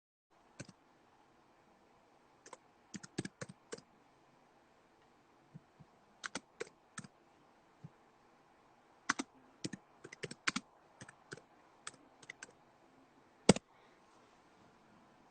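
Irregular clicks and taps in short quick runs, like typing on keys close to the microphone, with one sharper, louder click near the end.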